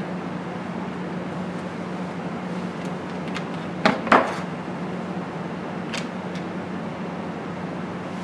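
Small metal clicks from handling a cable plug and clamping it in a helping-hands alligator clip, the two sharpest about four seconds in, over a steady low hum and hiss.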